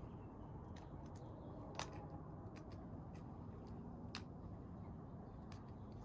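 Scrub jay picking at peanuts in the shell on concrete: a few light clicks and taps, the sharpest about two seconds and four seconds in, over a steady low background rumble.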